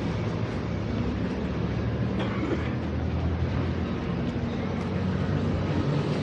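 Street traffic: a steady low engine rumble from passing and idling vehicles.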